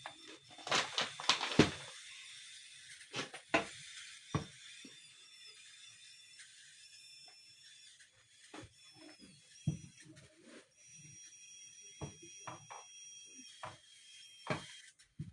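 Irregular knocks and scrapes of a cooking spoon against a pot while ugali is being cooked, with a loud cluster of knocks about a second in. Faint thin high squeaky tones run underneath.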